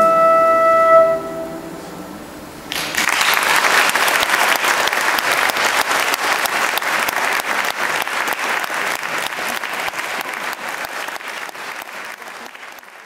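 The music's last held chord dies away about a second in. After a short gap, an audience breaks into applause, many people clapping, which slowly fades toward the end.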